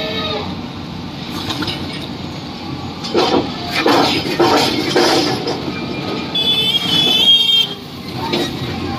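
Heavy construction machinery running with a steady noise. There are voices for a couple of seconds in the middle, and a brief high wavering tone a little after six seconds.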